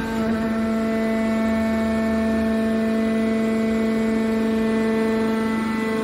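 Hydraulic power unit of a scrap metal baler running: the electric motor and hydraulic pump give a steady, even-pitched whining hum.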